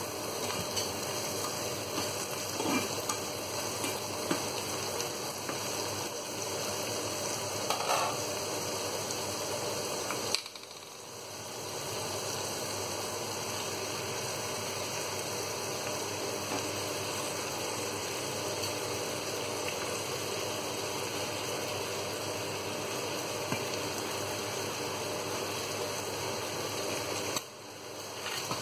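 Diced zucchini sizzling in a frying pan, with a plastic slotted spatula stirring and knocking against the pan now and then. The steady sizzle drops out briefly twice.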